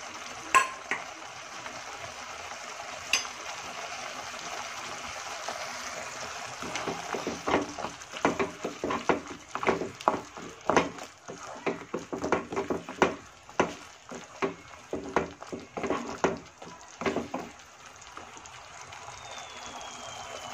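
Tomato-puree masala with peas and chopped capsicum sizzling in a kadhai, with a couple of sharp clicks in the first few seconds. A wooden spatula then stirs and scrapes against the pan in irregular strokes, about two a second, for some ten seconds, after which the sizzle goes on alone.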